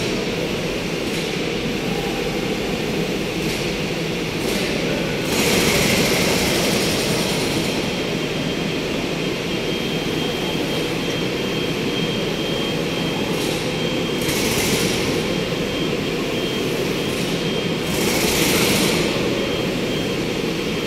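Heavy machinery running in a large concrete hall: a steady rumble with a thin, steady high whine above it, and three louder bursts of hiss.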